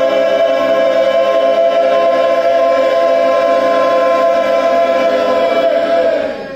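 Galdr chant: one long vowel 'A' sung loud and held on a steady pitch, ending with a slight fall in pitch near the end.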